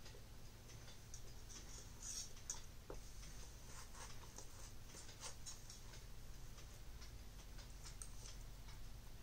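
Faint, irregular clicks and scrapes of a metal fork and knife on a ceramic plate as pancakes are cut and eaten, over a steady low hum.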